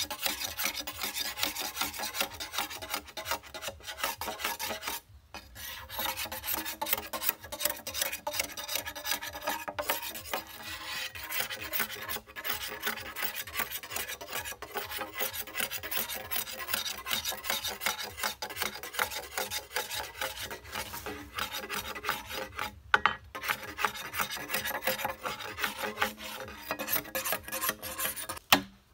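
Machete blade scraping the green outer skin off a large bamboo pole in quick, rasping strokes, with a couple of short pauses. A sharp knock comes just before the end.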